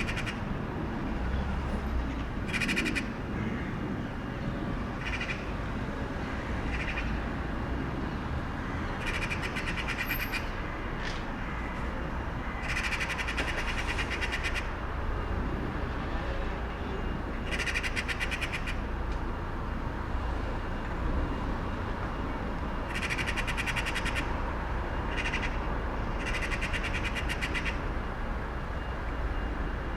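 Crow-like birds giving harsh, rasping calls in about ten bouts, some short and some drawn out over a second or more. Under them is the steady low rumble of a quiet street.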